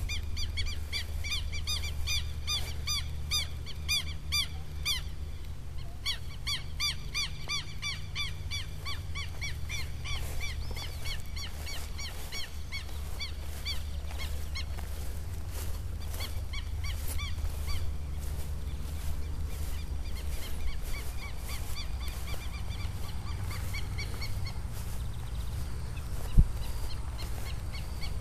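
A bird calling in a rapid run of short, arched chirps, several a second, strong for the first dozen seconds with a brief pause, then fading. Under it a steady low rumble, and a single knock near the end.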